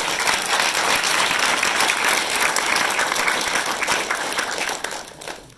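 Audience applauding at the end of a talk, a dense patter of many hands clapping that holds steady and dies away near the end.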